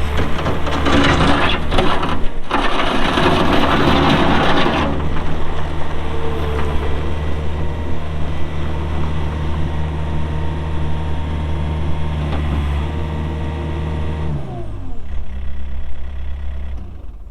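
Takeuchi TL120 skid steer's Yanmar diesel engine running steadily, with a loud rushing noise over it for the first five seconds while the machine works. About fourteen seconds in the engine's pitch drops and it winds down.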